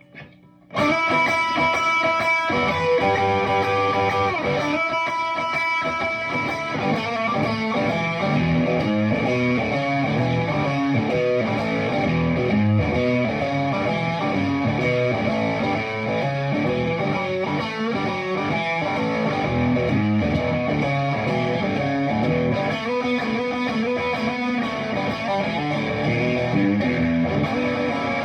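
PRS Silver Sky electric guitar played straight into a Friedman Little Sister combo amp, dry with no time-based effects. After a short break about half a second in, it plays continuous chords and single-note lines.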